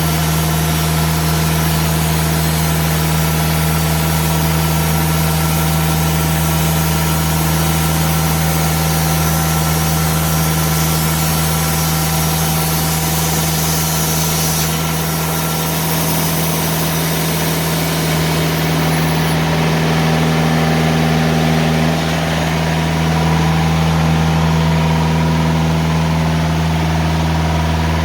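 TimberKing 2000 band sawmill running steadily under power while its blade cuts through a pine log, a high hiss over the engine's drone. The hiss drops away about eighteen seconds in, leaving the engine running on.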